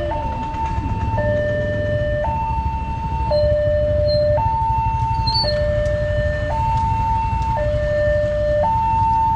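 Railway level-crossing warning alarm sounding a steady two-tone signal, a higher and a lower tone taking turns about once a second, which tells road users that a train is coming and the barriers are closing. A low traffic rumble runs underneath.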